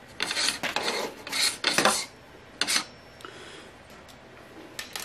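Aluminium fence of an Incra 1000HD miter gauge scraping as it is slid along its mount while the T-slot piece is worked out of its channel: a run of short rough strokes in the first two seconds and one more shortly after.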